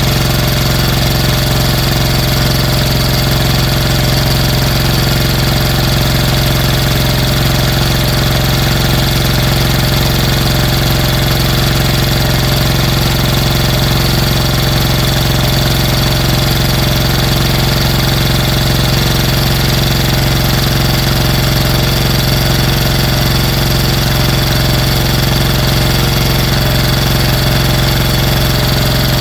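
The reassembled engine running steadily at one constant speed with a strong, even drone, on internals that were already damaged: a bent camshaft and a filed-down crankshaft.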